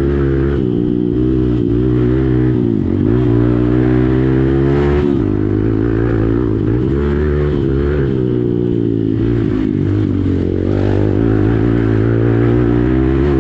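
Hero Xpulse motorcycle's single-cylinder engine running through an aftermarket Akrapovic exhaust. Its pitch dips and climbs back several times as the throttle is closed and opened again.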